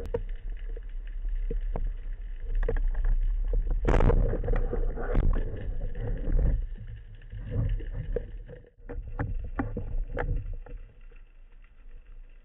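Underwater sounds through a camera housing mounted on a speargun: a low rumble of water with many knocks and clicks, and a sharp loud crack about four seconds in as the speargun is fired, followed by more knocking and rattling as the speared fish is handled on the shaft.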